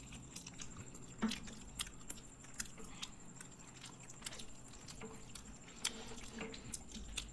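Close-miked eating sounds: soft chewing and mouth noises from people eating fried chicken and black bean noodles, with scattered light irregular clicks such as a fork touching a plate.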